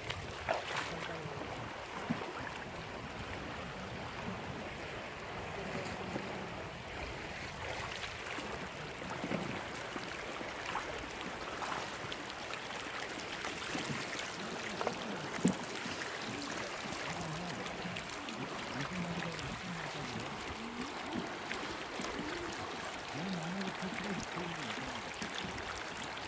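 Mountain stream water running steadily, with a few sharp splashes or knocks and faint voices now and then.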